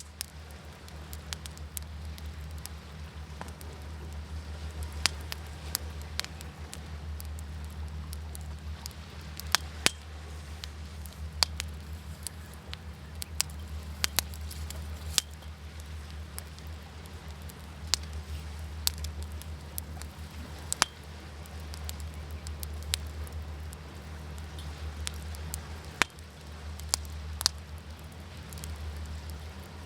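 Wood fire crackling, with irregular sharp pops a few times a second, over a low, steady rumble of waves that swells a little now and then.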